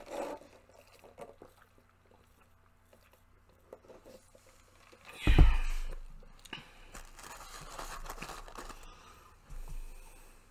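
Close-up eating sounds: a sip through a drinking straw at the start, a sudden loud thump about five seconds in, then chewing and crunching with small handling noises.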